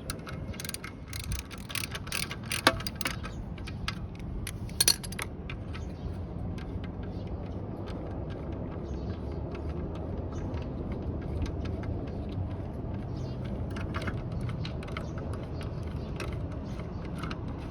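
Metal clicks and clinks of hand tools on the muffler mounting bolts of a Honda Dio scooter as they are undone, busiest in the first five seconds with two sharper knocks, then fewer light clicks over a steady low rumble.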